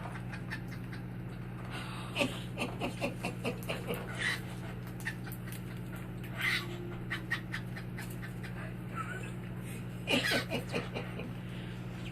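Cockatiel mimicking human laughter in several short runs of quick 'ha-ha-ha' pulses, about five a second, with a few chirps in between.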